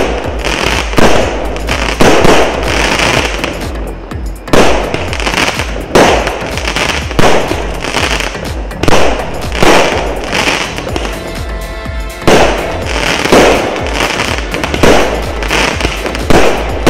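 A 25-shot, 0.8-inch consumer fireworks cake firing shot after shot, about one a second. Each shot is a sharp bang followed by a sizzling crackle as the crackling chrysanthemum stars burn out.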